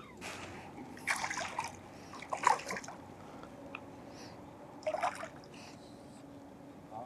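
A hooked herabuna (Japanese crucian carp) splashing at the water's surface in about four short bursts as it is played in toward the landing net.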